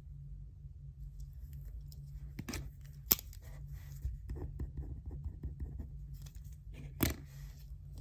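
Desk study sounds over a low steady room hum: paper and stationery handling, with a sharp click about three seconds in, a run of light taps, and a short rustle near the end.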